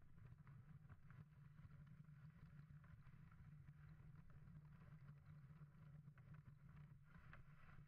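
Faint, steady rumble and hiss of a wooden dog sled's runners sliding over thin, patchy snow as huskies pull it, with a few light clicks.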